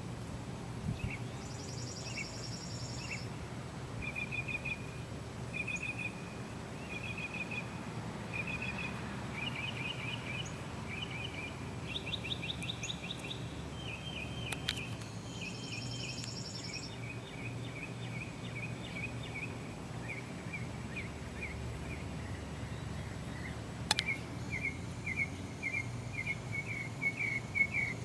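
Songbirds singing in a long series of short, quickly repeated chirping notes, with occasional higher trilled phrases, over a steady low hum. A single sharp click sounds near the end.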